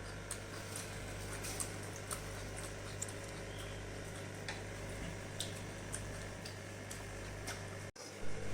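Quiet eating sounds: faint chewing and scattered small clicks over a steady low electrical hum, broken by a brief dropout near the end.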